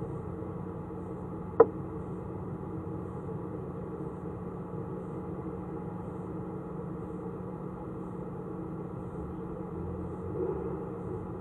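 Steady electrical hum made of several fixed tones, with one sharp click about a second and a half in.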